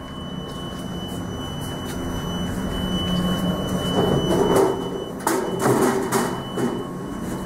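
Parts of an opened can vending machine being handled: a steady low hum, then rattling and several sharp metal knocks in the second half.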